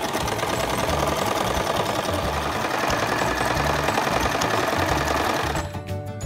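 Easy Home electric sewing machine running at a steady speed, stitching through a thick terry towel, then stopping about five and a half seconds in.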